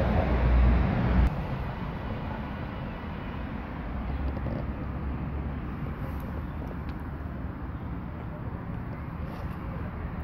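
Outdoor street background noise: a low, steady rumble that is louder for about the first second and drops suddenly, with a few faint ticks after.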